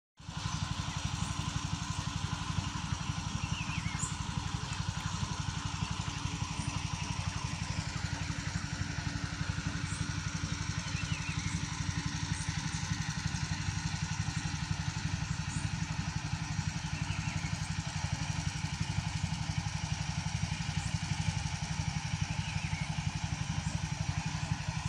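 An engine idling steadily with a fast, even chug that does not change.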